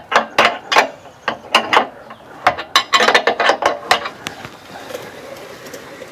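Socket ratchet wrench clicking in short strokes as a bolt on the running board bracket is turned, the clicks stopping about four seconds in.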